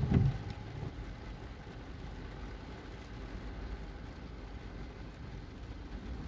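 Steady rain noise mixed with road traffic, with a brief low thump right at the start.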